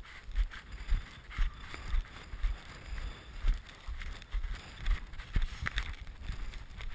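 Dog sled moving over snow behind a trotting team, with wind buffeting the camera microphone: low thumps and scraping that recur about twice a second.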